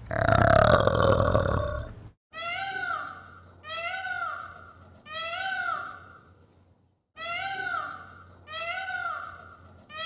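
An orangutan gives a deep, rough call for about two seconds. Then a peacock calls over and over, about six times at roughly one-and-a-half-second intervals, each call rising and then falling in pitch, with a short pause about seven seconds in.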